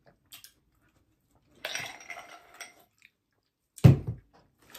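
Close-miked eating: a second or so of crunchy chewing of taco shell or cucumber, then a sharp thump near the end.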